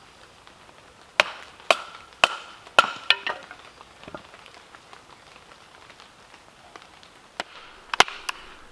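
Firewood being split with a large bushcraft knife: sharp wooden knocks, five in quick succession about half a second apart, a pause, then three more near the end, some with a brief metallic ring.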